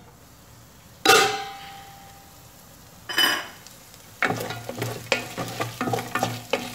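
Two ringing metal clanks from the steel pot lid being taken off, about one and three seconds in. Then a wooden spoon stirring and scraping cubed chicken sautéing in a stainless steel pot, with a light sizzle.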